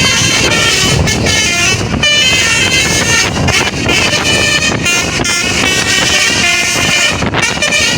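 Tour bus's telolet basuri musical horn playing a fast melody of quickly changing notes, loud and unbroken, over engine and road noise.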